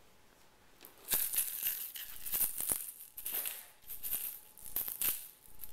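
Kittens batting a ball around a plastic circular track toy. It rattles and clicks in repeated short bursts, starting about a second in.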